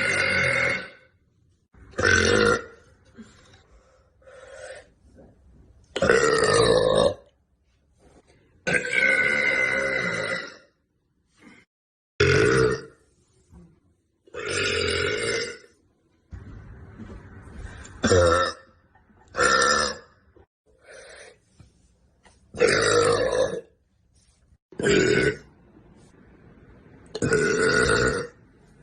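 A woman burping over and over: about a dozen loud belches, roughly one every two seconds, some short and some long and drawn out with a held pitch.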